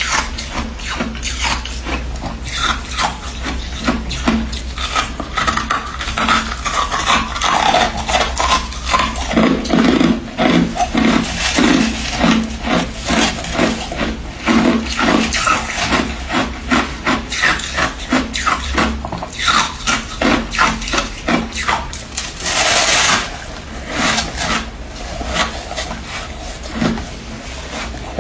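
Freezer frost being scraped and crunched close to the microphone: a fast, uneven run of crisp crunches and squeaky scrapes, with one longer scrape a little before the end. A steady low hum runs underneath.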